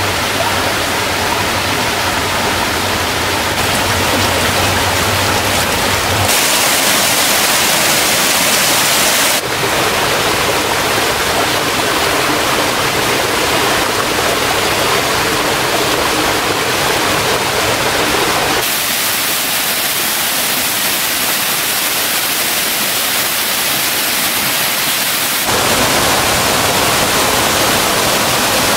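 Rushing water of a mountain stream and waterfall: a loud, steady wash of noise that shifts abruptly in tone several times.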